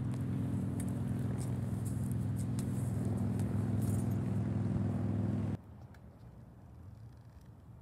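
A motor running at a steady pitch, which cuts off abruptly about five and a half seconds in.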